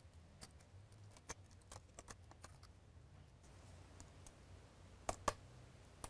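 Faint, scattered clicks and ticks of small tools working inside an opened iPad Pro, prying out the black metal shield, with two sharper clicks about five seconds in.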